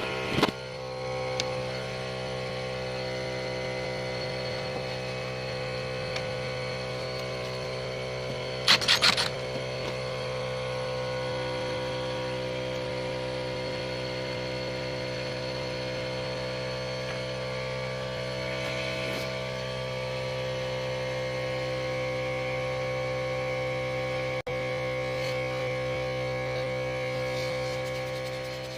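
A steady mechanical hum with many even overtones, unchanging throughout, with a short rattle about nine seconds in.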